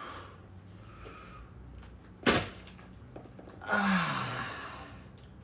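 One sudden, sharp impact about two seconds in, then about a second and a half later a short, breathy vocal sound that falls in pitch.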